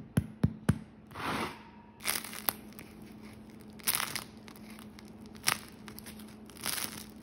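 Fingers tapping a freshly baked sourdough loaf three times in quick succession, a hollow knock that is a sign of fully cooked bread. Then the crisp crust crackles in scattered bursts as the loaf is squeezed in the hands.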